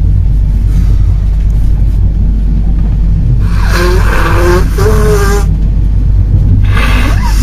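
Intercity passenger coach running on the rails: a loud, steady low rumble of wheels and track. Two spells of louder, higher-pitched noise with a few steady tones come in, one in the middle and one near the end.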